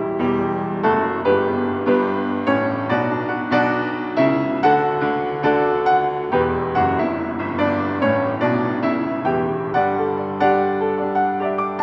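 Solo piano music, a gentle piece with notes struck in a steady flow, each fading as the next comes in.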